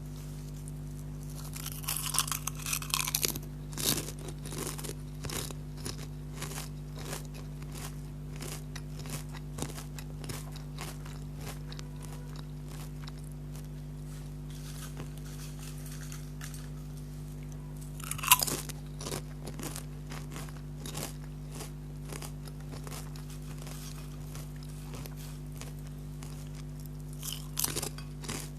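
Close-miked biting and chewing of crunchy Lay's potato chips: a rapid run of sharp crunches, with louder bites about two to three seconds in, once near the middle and again near the end. A steady low hum sits underneath.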